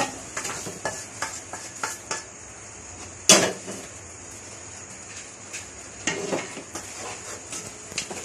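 Metal cookware clattering and scraping as meat is scraped from a frying pan into an aluminium cooking pot, with one loud clank about three seconds in as the pan is set down on the stove. Then a wooden spatula scrapes and stirs in the pot.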